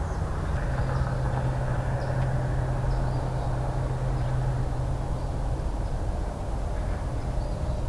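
Steady low rumble of a distant engine, with a low hum that comes in about half a second in and drops out after about five seconds.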